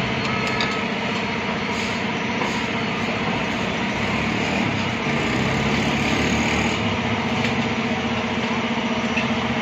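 Engine idling steadily.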